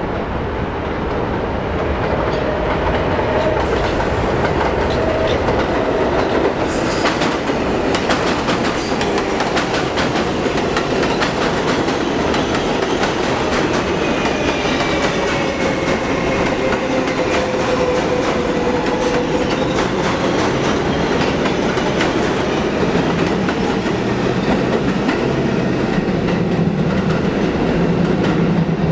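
New York City subway train rolling past: a steady rumble of steel wheels on the rails with repeated clicks over the rail joints, a faint wheel squeal gliding down in pitch about halfway through, and one sharper bang about seven seconds in.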